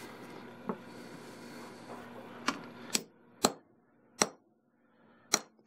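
Hammer tapping a center punch into an aluminium wire-rope ferrule to crimp it onto the cable: five sharp, light taps at uneven spacing, after a fainter tap near the start.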